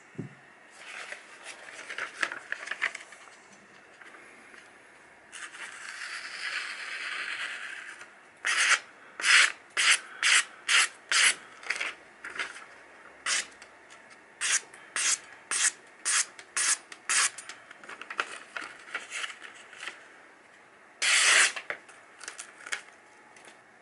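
A freshly sharpened Japanese knife slicing through sheets of printed paper: a run of short cuts, about two a second, with a longer hiss of paper before them and one longer cut near the end.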